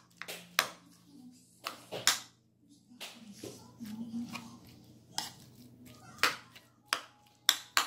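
Metal spoon clinking and scraping against a ceramic bowl while chopping and mixing chunks of avocado and onion for guacamole: irregular sharp clicks, about one or two a second, with soft mushy scrapes between them.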